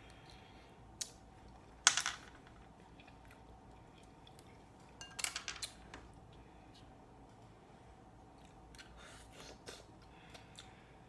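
Close-miked eating of a seafood boil: short sharp clicks and crackles as shrimp and mussel shells are handled and cracked. The loudest crackle comes about two seconds in, a quick cluster follows around five seconds, and softer ones come near the end.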